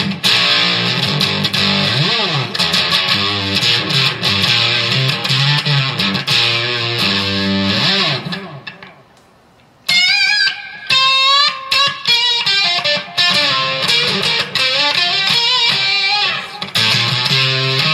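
1972 Gibson Les Paul Deluxe electric guitar played loud through an amp: a riff with sliding notes, dropping away briefly around nine seconds, then a high lead line with string bends and vibrato from about ten seconds in.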